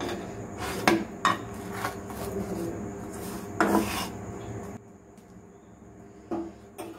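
Metal spoon clinking and scraping against a non-stick frying pan as a naan is lifted, turned and pressed while it cooks. There are a handful of separate clinks, the loudest about three and a half seconds in, over a steady hiss that drops away about five seconds in.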